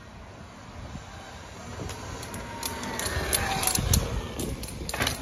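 Sur-Ron X electric dirt bike riding toward the camera: tyres rolling on pavement with a faint motor whine, getting louder as it nears, loudest about four seconds in.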